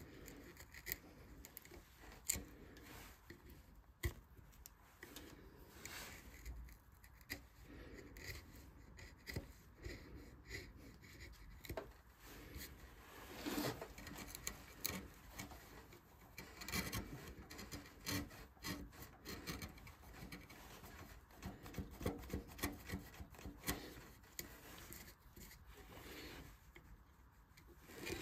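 Hand tool scraping and cutting into wood in short, irregular strokes, as in hand carving or rasping a relief into the wood.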